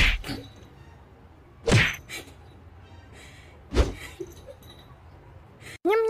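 A cat knocking at a door with its paw: three loud knocks about two seconds apart, each followed by a softer one. Just before the end a long steady tone begins.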